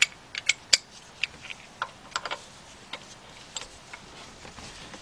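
Hand ratchet wrench clicking in short, irregular ticks and metal clinks as it is worked on the crankshaft pulley bolt.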